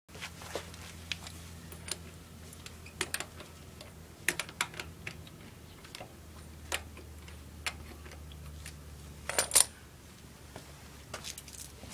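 Metal tools and hardware clinking and clicking at uneven intervals as they are handled for a tyre change, over a low steady hum; a louder cluster of clinks comes near the end.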